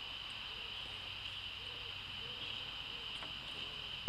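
Steady outdoor ambience: an even high-pitched hiss, with a faint click a little after three seconds in and a sharper tick at the very end.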